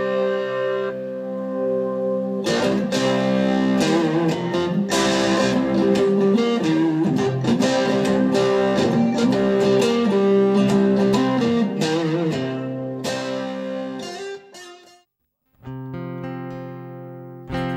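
Guitar played through Roland VG-8ex and VG-88 guitar modeling processors: picked notes and chords ringing into long sustained, layered tones. Near the end the sound cuts out briefly, then comes back with a new held chord.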